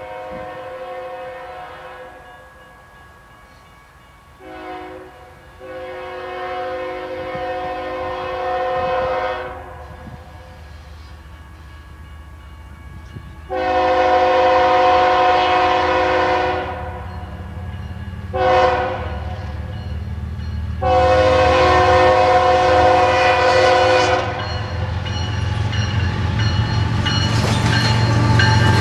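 Air horn of a BNSF ES44C4 diesel locomotive blowing for a grade crossing: six long and short blasts, the loudest two in the second half. Under it the rumble of the locomotives' diesel engines grows steadily as the train draws near, with wheels clacking on the rails near the end.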